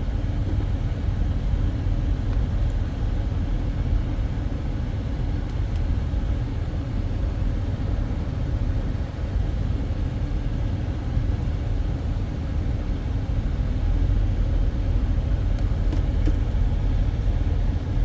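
Steady rush of air and low rumble inside a car cabin: the AC blower is running on high and will not shut off, a fault the owner puts down to a wrong wiring connection on the new head unit.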